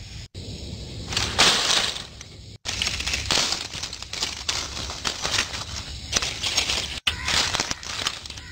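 Dry twigs and dry leaves crackling and rustling as they are handled and packed by hand into a stone fire hearth, in a dense run of sharp crackles.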